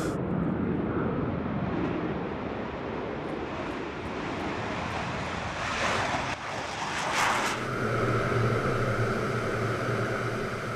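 F-16 fighter jet's engine on takeoff and climb-out, a loud rushing noise that swells briefly about six to seven seconds in. In the last few seconds it changes to a steady drone with a low tone and a higher tone, as heard inside the jet's cockpit in flight.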